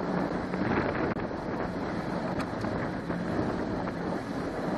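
Johnson 90 hp V4 outboard motor running steadily under way, with wind buffeting the microphone and water rushing past the hull.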